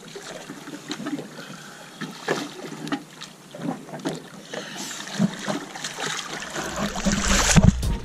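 Water splashing and lapping against a boat hull, with a swimmer splashing in the water alongside. Near the end it grows into a louder rush with a low rumble.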